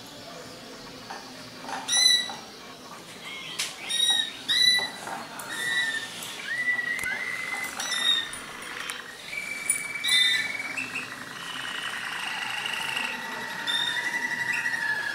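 Malinois Waterslager song canaries singing: separate clear whistled notes with quick upward and downward glides, then from about the middle a long, unbroken rolling trill.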